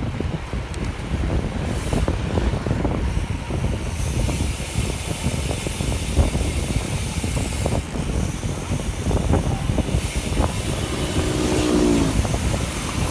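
Wind buffeting the microphone with road rumble while riding a bicycle at speed, steady and gusty throughout. A short pitched sound cuts in about eleven seconds in.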